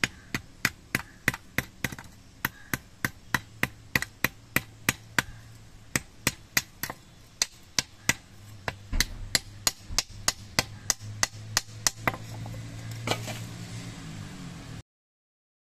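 Small hand hammer striking a sickle on a block anvil as it is fixed into its wooden handle: sharp metallic taps, about three a second. The blows thin out after about twelve seconds, and the sound cuts off suddenly near the end.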